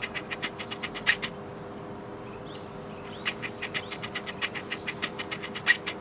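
Eurasian magpie chattering: two rattles of rapid harsh notes, about seven a second, the first ending about a second in and the second starting about three seconds in.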